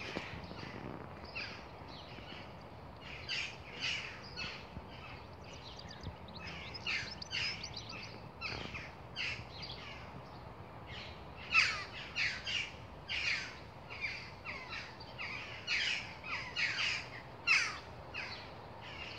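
Birds chirping in quick, irregular runs of short high calls over steady low background noise.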